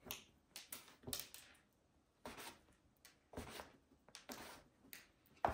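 Plastic dough scraper cutting through soft dough and knocking on a tabletop, with hands patting and pressing the dough pieces: a run of short, irregular taps and soft knocks, roughly two a second.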